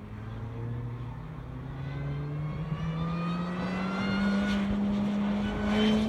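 Mini Cooper's four-cylinder engine accelerating through an autocross course, its pitch climbing steadily and growing louder as the car comes past.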